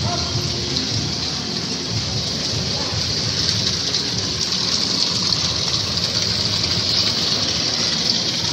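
Steady rush of falling water from an indoor water feature in the cave, growing a little louder around the middle.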